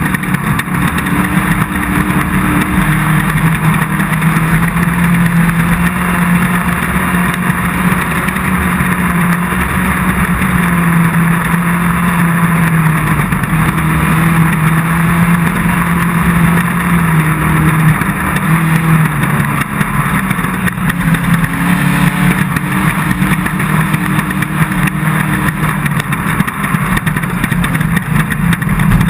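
Off-road race car's engine running hard at a fairly steady pitch, rising and falling a little and easing off briefly about two-thirds of the way through, under a constant rush of wind, tyre and terrain noise.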